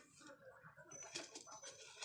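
Birds calling faintly in short, broken calls, with a brief high whistle-like note about a second in.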